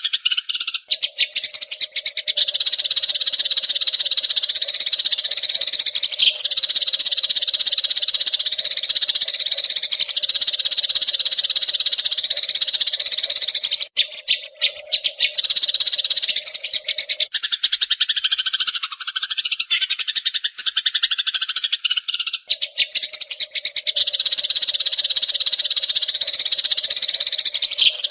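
Eurasian tree sparrows chattering in a continuous dense stream of rapid, high chirps, with a lower steady tone underneath for much of the time.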